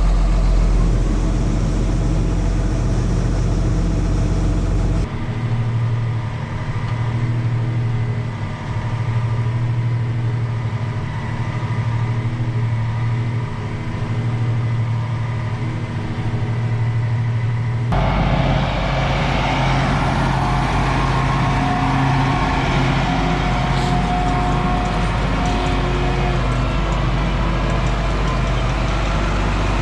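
Heavy vehicle engines running steadily. The sound changes abruptly about five seconds in and again past the middle.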